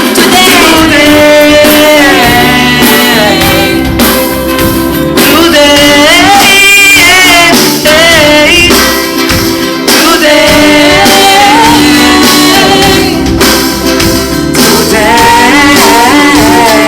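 Pop song: a sung vocal line with long, sliding held notes over a full band with drums.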